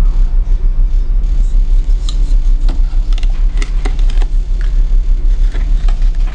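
A steady low rumble, with a few light clicks and rustles around the middle as the knife and its leather sheath are handled.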